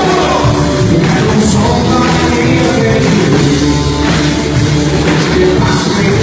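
Church worship band playing loud, steady rock-style music with a drum kit and sustained chords.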